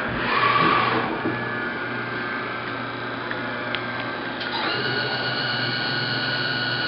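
A 1994 Fadal VMC4020 vertical machining center running: a steady mechanical whir, swelling briefly in the first second. About two-thirds of the way in, a steady high-pitched whine made of several tones comes on and holds.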